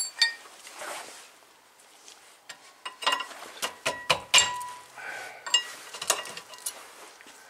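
Rear disc brake pad's steel backing plate clinking and scraping against the caliper bracket and its hardware clips as it is worked loose, a few sharp metallic clinks with a short ring in two bunches from about three seconds in. The pad is stuck in the bracket by rust scale.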